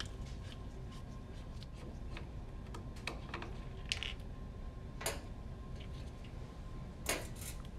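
Scattered light clicks and ticks of a Phillips screwdriver working small screws out of a printhead's metal and plastic housing, with the loosened screws and the tool being set down on the bench. A pair of sharper clicks comes about seven seconds in, over a faint steady hum.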